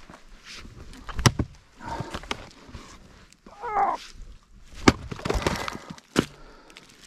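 Fiskars splitting axe chopping into firewood: three sharp strikes, the last two about a second and a half apart, with split wood clattering after the second.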